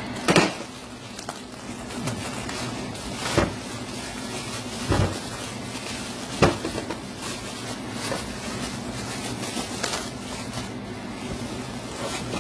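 Bubble wrap and rags rustling as parts are unwrapped by hand, with about five sharp knocks of parts handled on a workbench, over a steady low hum.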